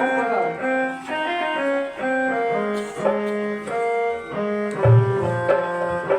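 A melody played on a keyboard instrument in held notes that step up and down. Low bass notes come in about five seconds in.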